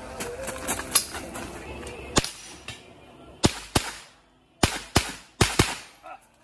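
Gunshots during a timed practice run: a single shot about two seconds in, then three quick pairs of shots, each a sharp crack with a short ring-out. A couple of sharp clicks of gun handling come in the first second.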